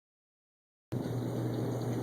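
Dead silence for about the first second, then a steady low hum with a hiss over it cuts in abruptly.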